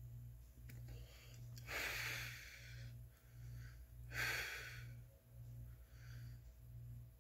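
A man's breathing as he smokes a cigarette: two loud, breathy breaths, about two seconds in and again past four seconds, over a faint low hum that pulses steadily.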